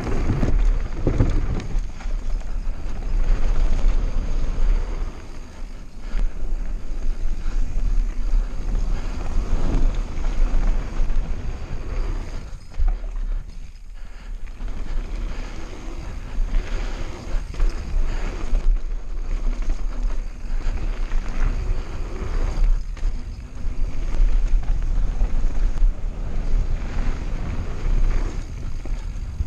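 Wind rushing over the microphone of a mountain bike's onboard camera on a fast descent, together with tyre noise on the dirt and gravel trail. The noise rises and falls with speed and bumps, easing briefly about halfway through.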